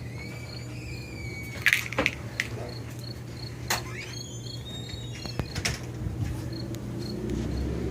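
Crickets chirping in a steady rhythm of about three chirps a second, with a few whistled glides and several sharp clicks. A low engine sound begins to build near the end.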